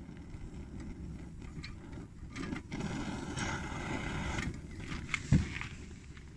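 Old spirit-burning hiking stove burning with a large, flaring flame, a low steady rushing; its burner is in need of an overhaul. About two seconds in a brighter hiss rises for a couple of seconds, and a single thump comes about five seconds in.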